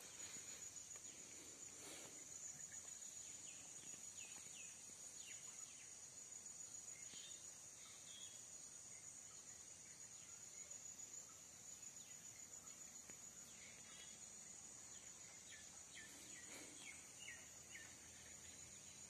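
Steady high-pitched insect drone of a rice paddy, with bouts of short, quick falling bird chirps, one a few seconds in and another near the end.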